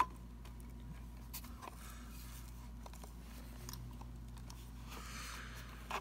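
Kirby vacuum's base plate being fitted back onto the nozzle by hand: a sharp click at the start, then faint scraping, rubbing and a few light taps of plastic and metal parts.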